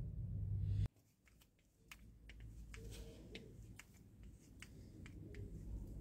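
A low rumble of handling noise that cuts off abruptly about a second in. Then faint, scattered small clicks of metal parts and a screwdriver as the clamp screw of a steering-wheel spinner knob is worked loose.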